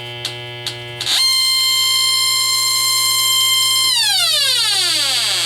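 Bacharach H10 refrigerant leak detector ticking steadily, about two ticks a second. About a second in it jumps into a loud, continuous buzzing alarm tone, holds it for about three seconds, then falls steadily in pitch: the sign that the probe has found leaking refrigerant.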